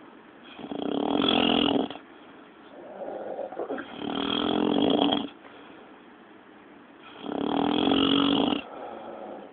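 Snoring in a steady rhythm: three long, loud snores, each about a second and a half, coming about every three seconds, with softer breathing between them.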